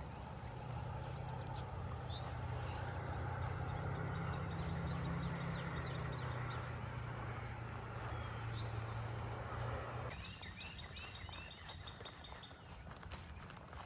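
A steady low drone that cuts off abruptly about ten seconds in, with small birds singing in short repeated chirps throughout.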